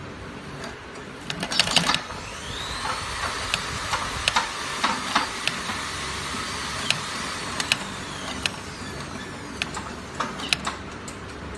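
Industrial sewing machine stitching a shoe: its motor whine rises as it speeds up a couple of seconds in, runs steadily, then winds down near the end. Sharp clicks come throughout, with a loud cluster just before it speeds up.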